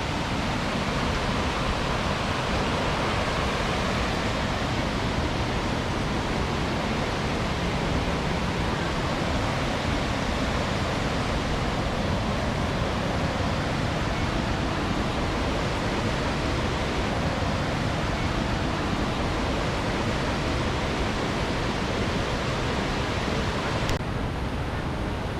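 Waterfall rushing: a steady, dense roar of falling water. A click comes near the end, after which the sound is a little duller.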